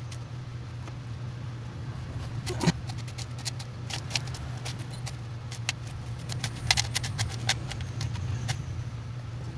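Small loose metal screws clinking and rattling as fingers rummage through a plastic box full of them. The clicks come irregularly, with the sharpest one about two and a half seconds in, over a steady low hum.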